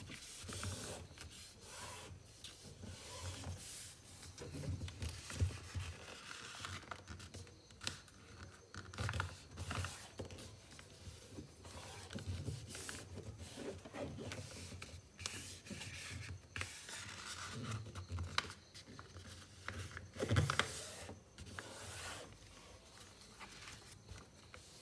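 A sheet of green coloured paper being folded and creased by hand on a tabletop: irregular rustling, sliding and scraping of the paper as fingers run along and press the folds flat. The loudest swishes come about 5 and 20 seconds in.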